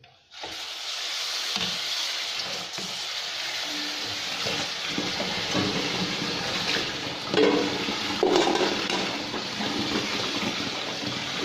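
Tap water running hard into an aluminium pot of steamed glutinous rice while a hand stirs and squeezes the rice: rinsing the slime off the cooked sticky rice. There are a few knocks of metal pots.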